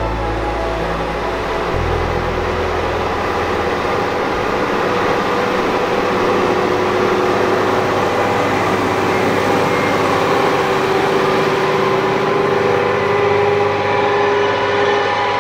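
Massey Ferguson 7718 S tractor's six-cylinder 6.6-litre AGCO Power engine working under load while pulling an Amazone KE403 rotary harrow through the seedbed: a steady engine and machinery drone with a few steady whining tones over it.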